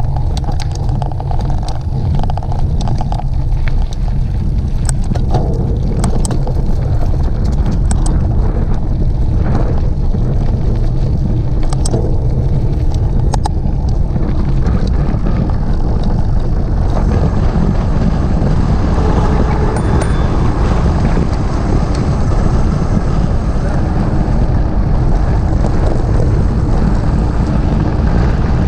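Steady wind rush buffeting the microphone of a camera on a moving bicycle, with scattered clicks and rattles over roughly the first half.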